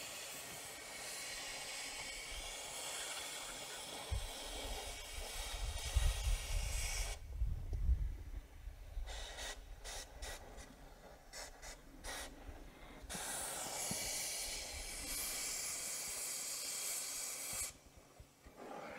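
Oxy-fuel cutting torch hissing as it cuts a rounded-off wheel nut off a Budd wheel stud. The hiss drops away in the middle for several seconds with a few crackles, returns, and cuts off suddenly near the end. A low rumble sits under it for a few seconds in the first half.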